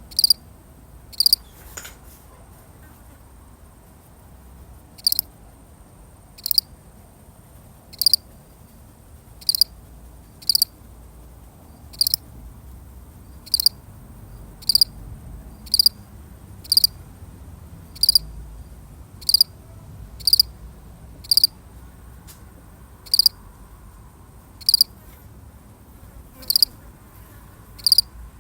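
A single cricket chirping: short, sharp, high chirps about once every second or so, with a pause of about three seconds near the start.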